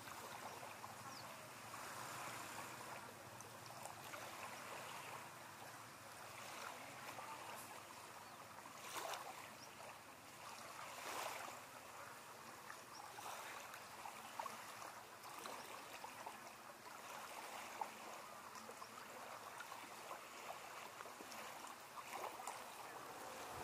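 Small waves lapping on a sandy beach in calm shallow water, faint and steady, with a couple of slightly louder washes partway through.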